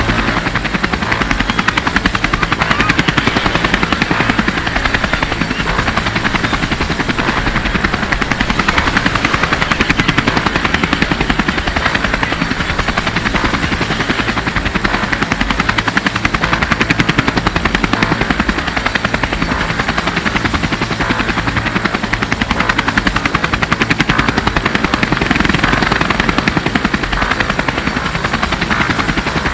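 A motor running steadily with a fast, even chopping pulse.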